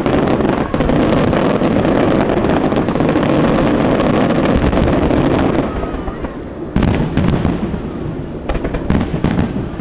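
Fireworks display: a dense, continuous barrage of bursts and crackling for about five and a half seconds, then thinning out to a few separate sharp bangs.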